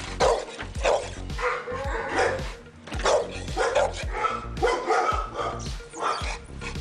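Pit bull barking repeatedly, about nine barks, over background music.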